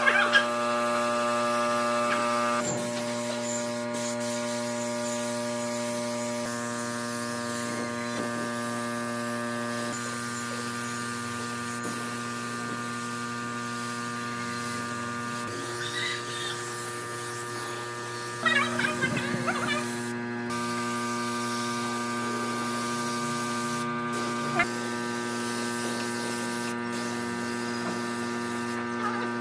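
Steady electric hum with several even overtones, as from a running motor, with a brief scraping sound about two-thirds of the way through.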